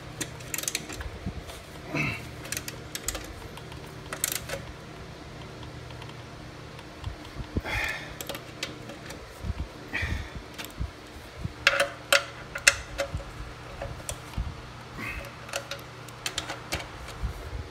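Scattered metallic clicks and taps of a hand tool on the engine mounting bolts under a lawn mower deck as they are tightened, with a few quick runs of clicks, over a steady low hum.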